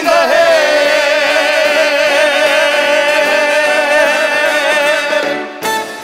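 Male voice holding one long sung note with vibrato over a live big-band backing, the drawn-out ending of a song; it breaks off near the end.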